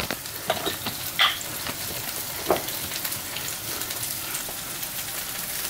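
Food frying in hot oil: a steady sizzle with scattered pops and crackles.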